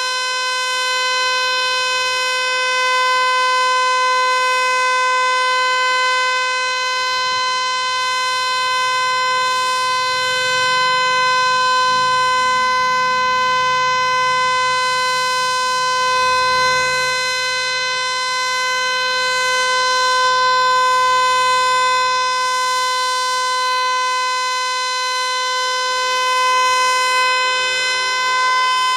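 Federal Signal Eclipse 8 outdoor warning siren sounding a loud steady tone held at one pitch, swelling and easing in loudness about every eight seconds.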